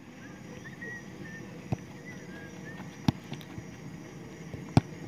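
Soccer balls being kicked: three sharp thumps spread a second or more apart, over a low steady outdoor background.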